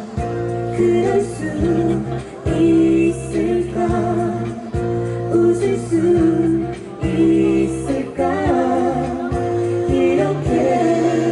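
A live acoustic pop song: sustained singing over a steady strummed acoustic guitar accompaniment.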